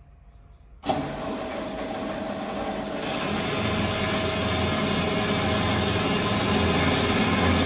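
Metal-cutting band saw switched on about a second in, with a sudden jump in level, then running steadily. From about three seconds in the sound turns brighter and a low hum joins as the blade cuts into a metal pipe.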